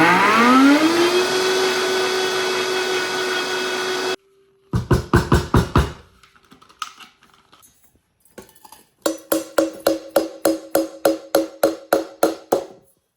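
Vitamix blender with its small smoothie cup grinding dehydrated gravy into powder: the motor spins up to a steady high whine, runs about four seconds, then stops abruptly. Then come two runs of quick rhythmic knocks, about four a second.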